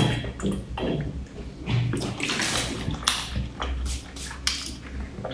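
Drink sloshing in a plastic bottle and being gulped down, then short, sharp puffs of breath blown out through pursed lips to cool a mouth burning from spicy food.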